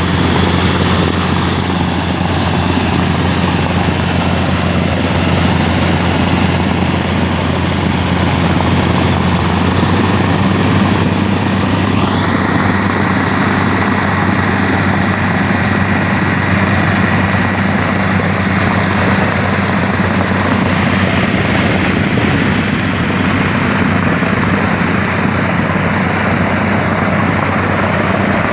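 Engine of a water-line drilling machine running steadily at constant speed, with a low drone throughout. Its higher whine steps slightly about twelve seconds in.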